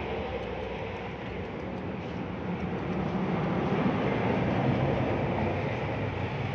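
A steady low mechanical rumble, like a passing vehicle, that swells a few seconds in and then eases off.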